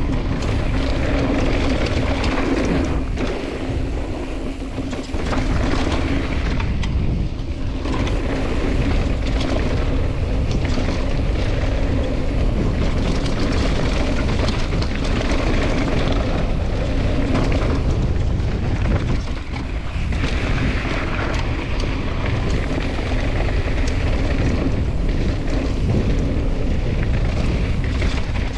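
Wind buffeting a bike-mounted camera's microphone during a fast mountain-bike descent, mixed with tyres rolling over a dirt trail and the bike rattling over bumps. The noise is loud and steady, with brief dips at about 7 and 19 seconds in.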